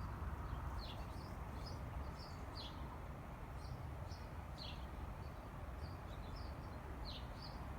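Small birds chirping repeatedly in short, high calls over a faint, steady low rumble of outdoor background noise.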